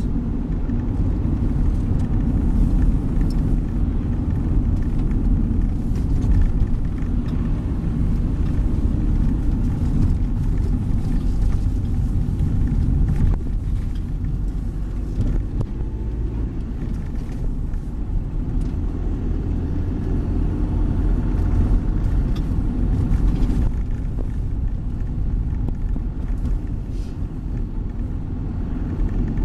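Engine and road noise of a moving vehicle heard from inside its cab: a steady low rumble, with a few faint knocks.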